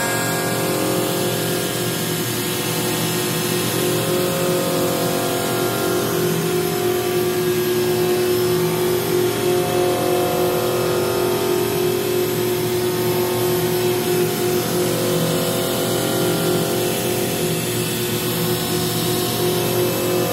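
CNC vertical machining center milling a metal mold core with a small end mill: a steady spindle whine over cutting noise, with a few held tones that shift slightly as the tool moves.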